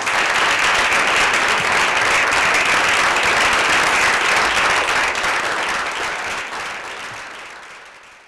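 Theatre audience applauding: dense, steady clapping that fades away near the end.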